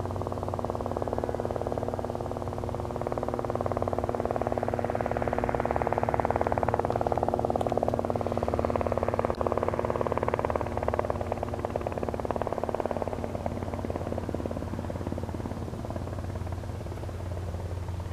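Single-engine Cessna 172R Skyhawk at full takeoff power: its propeller and piston engine swell over several seconds as it rolls and climbs away, peak about halfway through, then fade. A steady lower engine drone runs underneath throughout.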